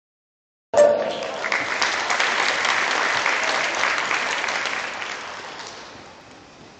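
Applause: many hands clapping, starting suddenly about a second in and dying away near the end.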